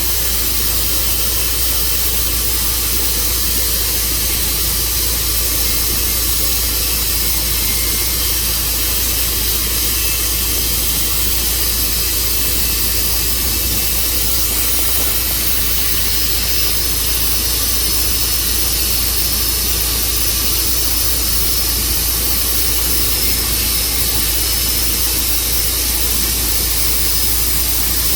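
Tru-Cut band sawmill running steadily under power, its engine and blade making a loud, unbroken hiss-laden drone.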